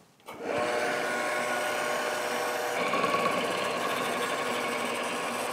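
Anago KST200e knife sharpness analyzer running a test cut: its drive runs steadily as the clamped knife blade is pushed through the test media. The sound starts a moment in and its tone shifts slightly about halfway.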